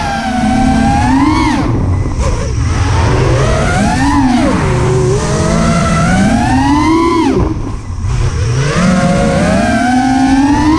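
FPV racing quadcopter's electric motors whining as the throttle is worked. The pitch climbs and then drops sharply about four times.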